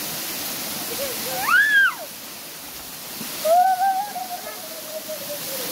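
Steady rushing of water, briefly quieter in the middle, with two short high-pitched calls over it: one rising and falling about a second and a half in, then a longer wavering one that slowly falls.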